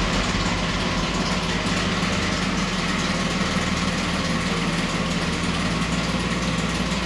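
Ford Explorer's engine idling steadily.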